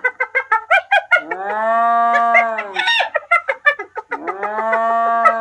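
Hyena calling: two long, drawn-out pitched calls, each about a second and a half, alternating with rapid strings of short, sharp notes.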